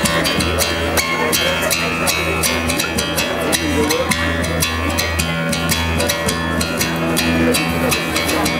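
Music with drums and percussion: quick, regular percussive strokes over a steady bass line.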